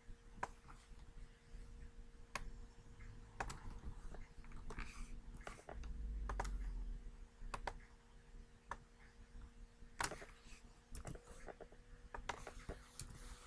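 Computer mouse clicks and keyboard keystrokes, scattered and irregular, as text is selected, copied and pasted, over a faint steady electrical hum. A brief low rumble comes about six seconds in.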